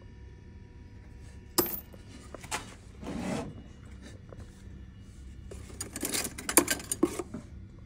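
Small steel knife parts clinking against each other as they are handled and put down: one sharp clink about a second and a half in, then a run of clinks and rattles about six to seven seconds in.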